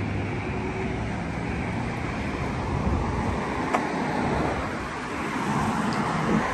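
Road traffic passing on a busy multi-lane road: a steady hum of tyres and engines from passing cars, growing a little louder near the end.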